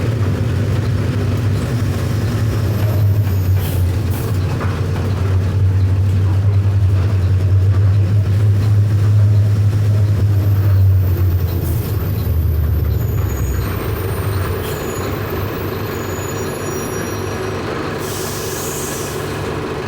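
Mercedes-Benz OF 1519 bus's four-cylinder electronic diesel engine running under load. About two-thirds of the way through, its low note drops and it settles to a quieter idle. Near the end comes a short hiss of air from the air brakes.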